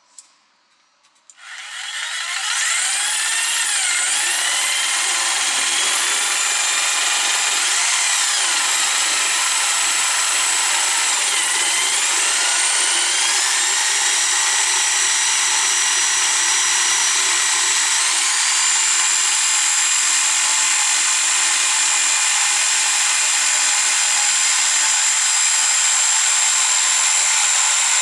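Bosch PST 800 PEL jigsaw switched on about a second in, its motor whine rising quickly to full speed, then running steadily as the reciprocating blade saws through a laminated board. The whine wavers and glides in pitch for a while as the blade meets load, then holds a steadier tone later in the cut.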